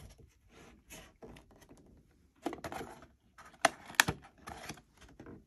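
Cardboard model-car box being handled and opened: scattered rustles, taps and clicks of card and flaps, the loudest few clicks about four seconds in.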